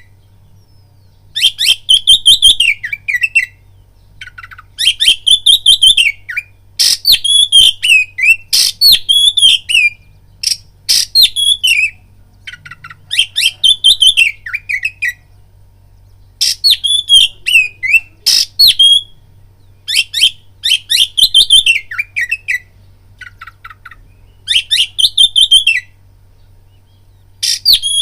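Oriental magpie-robin (kacer) singing loudly: repeated phrases of a second or so, each a rising-then-falling whistle mixed with rapid scratchy, chattering notes, coming every two to three seconds. A faint steady low hum runs underneath.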